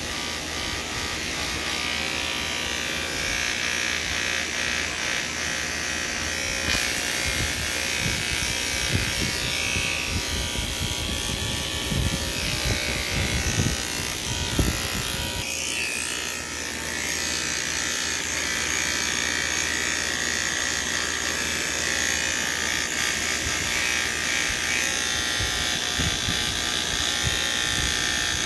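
Electric hair clippers buzzing steadily as they shave through long hair at the scalp. A few low irregular thuds come about halfway through.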